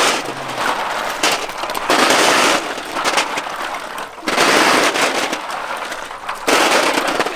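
Clattering of many snail shells knocking against each other and against stainless-steel trays and a basin as handfuls are scooped and dropped, with wet splashing. The clatter comes in several dense spells a second or so long.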